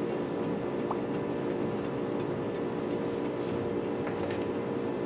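Steady machine-like hum with a few faint clicks.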